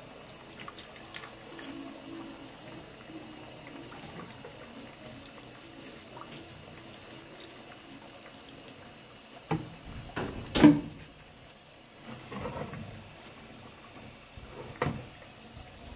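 Cold water poured in a thin stream into a pot of hot, bubbling melted beeswax. It runs steadily, with a few sharp pops; the loudest comes about two-thirds of the way through.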